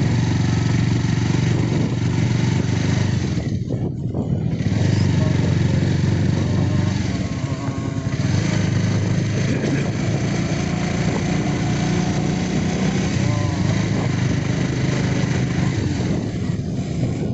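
Motorcycle engine running steadily while riding along a road, with a constant hiss over it that briefly drops away about four seconds in.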